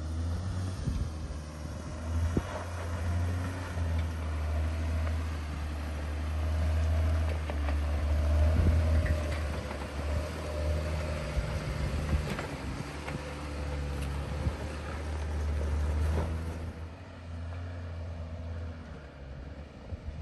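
Off-road vehicle driving on a rough dirt trail: a steady low engine and road rumble with scattered sharp knocks and rattles, easing off near the end.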